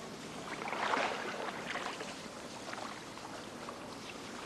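An oar dipping and pulling through floodwater as a small boat is paddled, with splashing and dripping; one louder splash about a second in.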